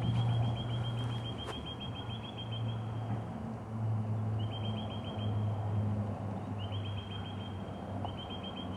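Low, steady drone of a low-flying four-engine military transport plane, taken for a C-130, swelling and easing as it passes. A bird calls over it in four bursts of rapid high chirps.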